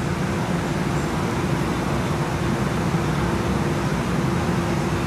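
Steady cabin noise inside a Siemens S70 streetcar: an even rumble with a constant hum running through it.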